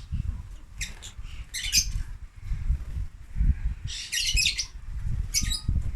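Parrots in aviaries giving several short bursts of shrill chirping and squawking, the longest run about four seconds in, over a steady low rumble.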